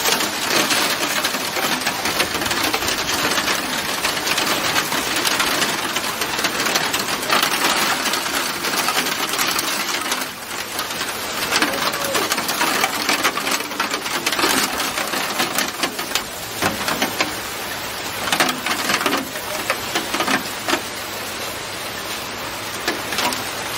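Heavy thunderstorm rain beating on a hard surface close by: a dense, loud hiss full of sharp drop hits.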